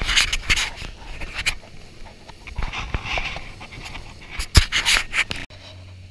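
Small aluminium boat running fast through chop: wind buffets the microphone and waves and spray slap the hull in irregular loud bursts. After a sudden cut near the end, a steady low outboard motor drone with quieter water noise.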